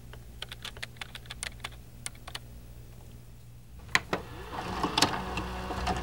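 Computer keyboard typing: a run of quick key clicks in the first two and a half seconds. About four seconds in comes a sharp click, followed by a growing hiss.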